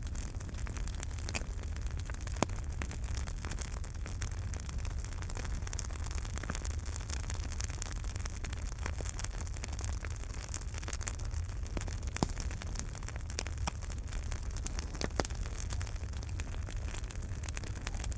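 Fireplace wood fire burning with a steady low rumble and frequent irregular crackles and pops, a few sharper pops standing out.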